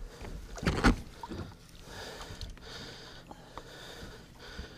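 Water splashing at the surface beside the boat as a hooked musky is led around close in, with one loud splash about a second in, then quieter sloshing.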